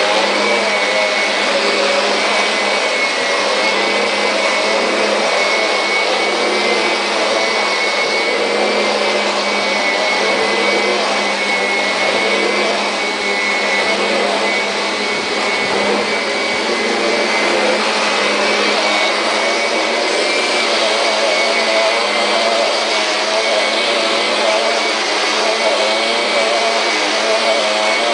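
Vacuum cleaner running steadily, a loud rushing hum with a high steady whine.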